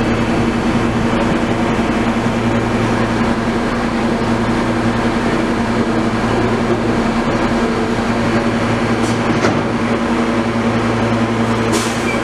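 R160 subway train standing in the station with its doors open, its ventilation and onboard electrical equipment giving a steady hum with several fixed tones. Near the end a short hiss as the doors close.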